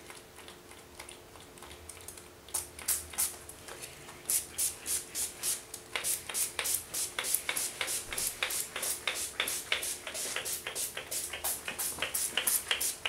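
Aerosol can of silicone water-repellent sprayed onto fabric in short hissing bursts: a few spaced bursts, then a quick regular run of about three a second.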